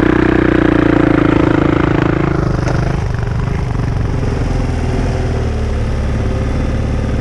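Motorcycle engine running under load for about the first two seconds, then settling into a steady, quieter note as the bike rolls along a sandy dirt track.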